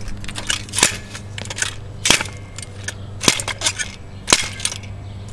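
An alkaline battery lying on asphalt is struck four times, about a second apart; each blow is a sharp crack as it is crushed.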